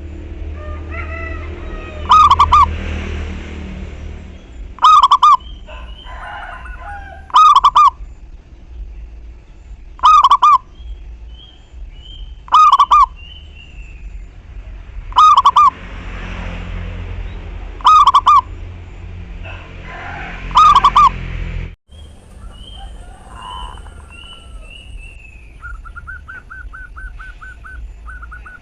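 Zebra dove (local perkutut) cooing: a short, loud, pitched coo repeated about every two and a half seconds, eight times, stopping about three-quarters of the way through. Other small birds chirp faintly in the background, with a brief trill near the end.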